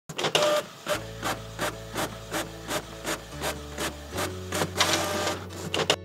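Printer mechanism sound effect: rhythmic mechanical clicking and whirring, about three clicks a second, over a low steady hum that shifts pitch a few times.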